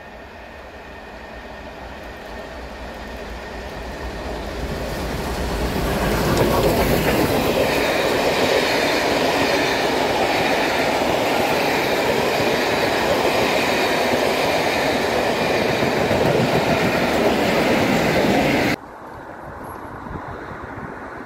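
A locomotive-hauled passenger train approaches, growing steadily louder, then its coaches roll past close by with a steady clatter of wheels on rail. About three-quarters of the way through the sound cuts off suddenly, leaving quieter wind noise on the microphone.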